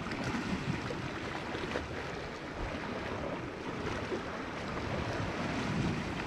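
Sea water lapping and washing against shore rocks, with some wind: a steady rushing with small irregular swells.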